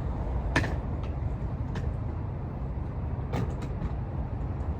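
Steady low rumble of a vehicle running, with a few sharp knocks and clunks from bags and boxes being loaded into a taxi.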